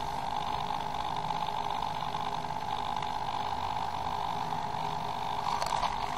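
Steady electric hum from the hexapod robot's hobby servos as it stands stalled, with a few faint clicks near the end.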